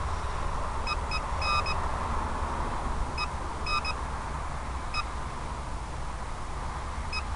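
Short electronic beeps, about nine in all, coming in irregular clusters of one to three, over a steady noise with a low rumble.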